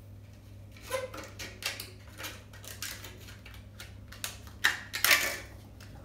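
Scissors snipping through a paper plate strip, a run of short crisp cuts starting about a second in, with louder paper crackle and snips near the end.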